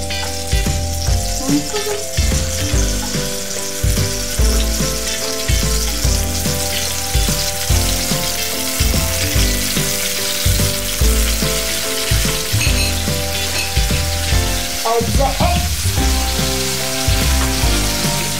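Tomatoes sizzling in hot oil in a frying pan, stirred and turned with a fork and a wooden spatula, over background music with a steady bass line.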